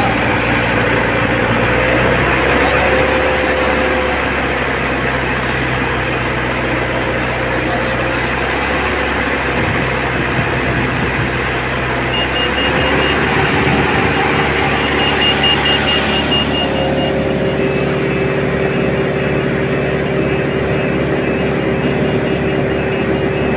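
Hydra crane's diesel engine running steadily, its note changing about halfway through. From then on, a rapid high-pitched electronic beeping sounds over it.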